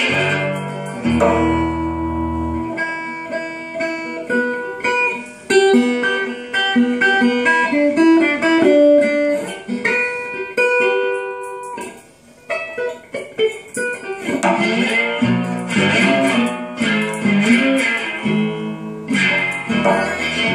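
Dobro resonator guitar played through an amplifier: fingerpicked blues lines, with some notes sliding in pitch and a short break about halfway through.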